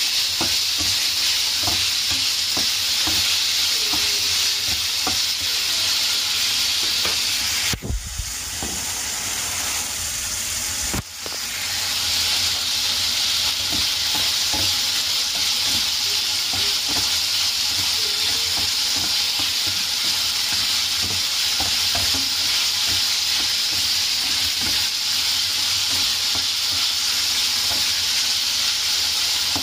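Diced chicken breast sizzling as it is stir-fried in a non-stick frying pan, with a spatula scraping and tapping against the pan. The sizzle drops for about three seconds a third of the way in, then returns.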